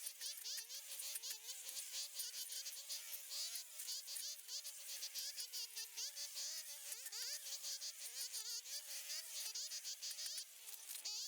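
Flying insects buzzing, a thin hum whose pitch keeps wavering up and down as they fly about.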